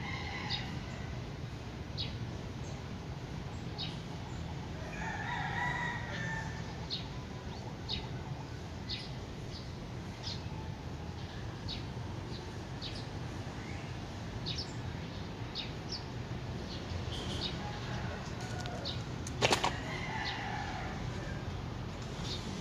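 A rooster crows faintly about five seconds in, over a steady low hum and short high ticks roughly once a second. A single sharp click sounds near the end.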